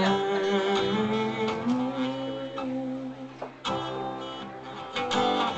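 Acoustic guitar strumming chords that ring on, amplified at a live gig, with fresh strums about three and a half and five seconds in.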